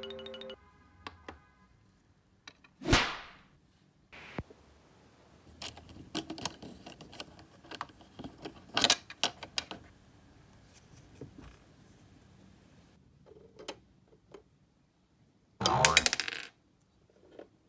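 Small hard plastic miniature dishes and cups clicking and clattering as they are handled, set down and knocked together. There are scattered light clicks, with two louder clatters about three seconds in and near the end.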